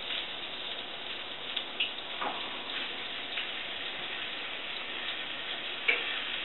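Melted butter sizzling steadily in a hot skillet, with a few small clicks about two seconds in and again near the end.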